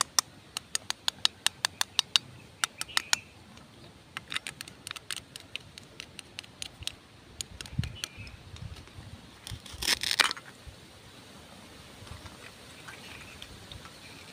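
Plastic toy knife working through a plastic toy cabbage's pieces: a run of sharp clicks at about four a second, more scattered clicks, then a short rasp about ten seconds in as pieces come apart.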